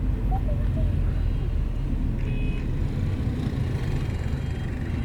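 Steady low rumble of engine and road noise inside a moving bus.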